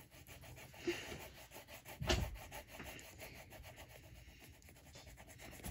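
Green crayon scribbling quickly back and forth on paper laid over a book, a faint, steady rubbing. There is a soft thump about two seconds in.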